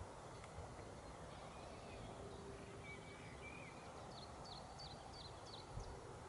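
Quiet outdoor background with faint distant birdsong: a few soft chirps in the middle, then a quick run of about five high, short notes a little after four seconds in.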